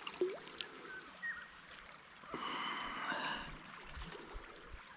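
A small barbel being brought in on a float rod: light water splashing and dripping at the surface, with about a second of whirring spinning-reel retrieve a little over two seconds in.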